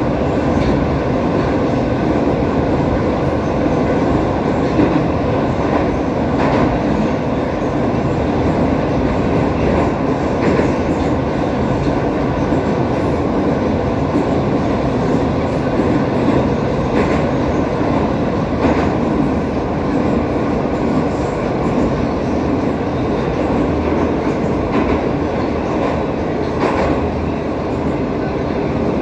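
Metro train running at speed through a tunnel, heard from inside the car: a loud, steady rumble of wheels on rails, with a few scattered clicks from the wheels over the track.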